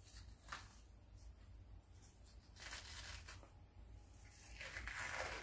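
Skin being peeled by hand off a raw sole: a faint tearing rustle, with a light click about half a second in.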